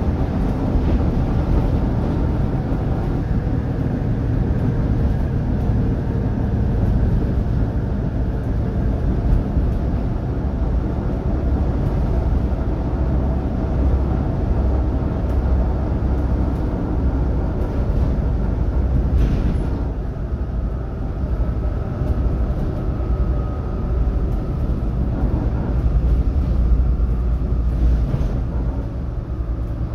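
Volvo B7TL double-decker bus's six-cylinder diesel engine running while under way, heard on board as a steady low rumble mixed with road and body noise. A faint whine comes in about two-thirds of the way through.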